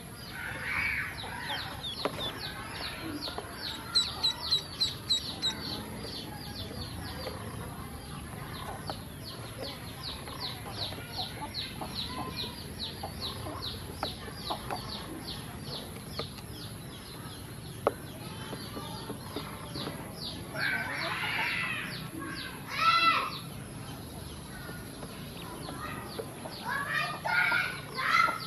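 Domestic ducklings peeping: a long run of short, high, rapidly repeated peeps. About two-thirds of the way through and again near the end come a few louder, lower bird calls.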